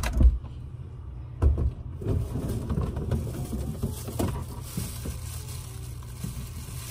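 A few dull thumps in the first two seconds, then a thin plastic bag crinkling and rustling as it is handled.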